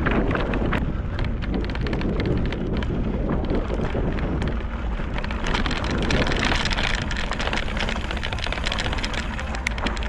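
Strong wind buffeting the microphone with a steady low rumble, over the crunch and rattle of mountain bike tyres rolling on a loose gravel track.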